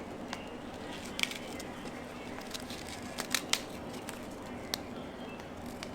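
Scattered light clicks and taps of kitchen utensils and a baking pan being handled, a few sharp ones spaced a second or more apart, over a steady low hum.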